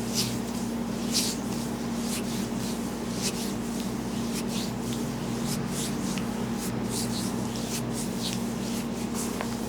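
Hands rubbing and stroking over hair and scalp in a head massage: short brushy strokes, about one or two a second, over a steady low hum.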